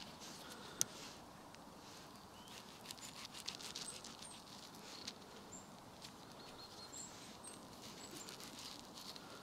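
Soft footsteps crackling and rustling on the wet forest floor, busiest about three to four seconds in, with a few short, thin, high-pitched bird chirps.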